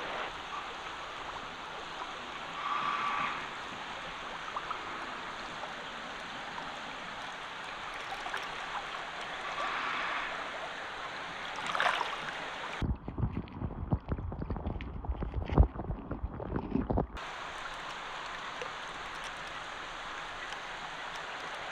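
Steady rush of flowing water. For about four seconds past the middle it gives way to a run of dull, irregular knocks and thuds.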